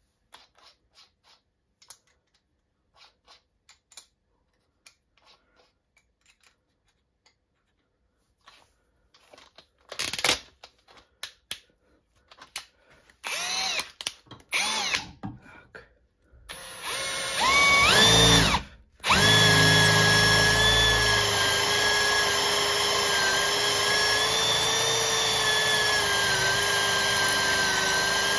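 Parkside Performance PABSP 20-Li C2 cordless drill-driver with a brushless motor, in its high-speed gear. First come a few light clicks, then from about halfway through several short trigger blips in which the motor spins up and stops. From about two-thirds in it runs steadily and loudly, drilling a 6 mm bit into iron.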